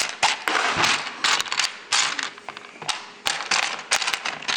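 Small plastic LEGO pieces clicking and clattering against each other as hands sift through a pile of parts, with many quick sharp clicks.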